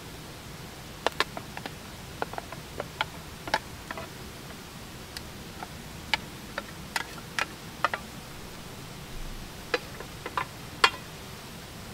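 Open wood fire crackling: sharp, irregularly spaced pops and snaps over a steady hiss.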